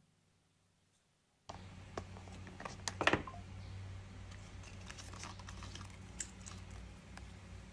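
Light clicks and papery rustling of cardboard packaging and a coiled charging cable being handled and lifted out of the box, loudest about three seconds in. Under it a low steady hum cuts in suddenly about a second and a half in.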